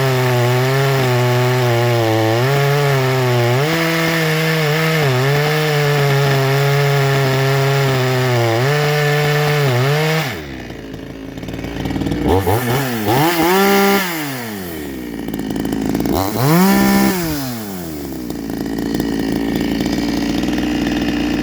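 62cc two-stroke chainsaw with a donut piston, running hard with its pitch wavering and dipping as if cutting under load. About ten seconds in it drops back, is revved up and down twice, then settles. The ignition timing is advanced too far, which the owner says makes it pop and fart and not want to run.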